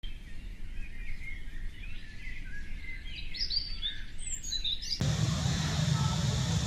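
Birds chirping: many short, quick calls that rise and fall in pitch and grow busier toward the middle. About five seconds in they cut off abruptly and a steady outdoor background noise with a low rumble takes over.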